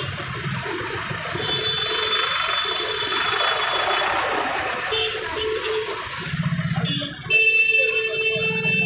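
Motorcycle riding through congested street traffic, engine and traffic running under vehicle horns honking: short toots about a second and a half and five seconds in, then a longer blast near the end.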